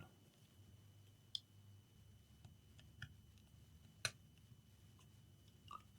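Near silence with three faint, short clicks spread a second or so apart: a plastic device casing being handled and tried while it is worked open.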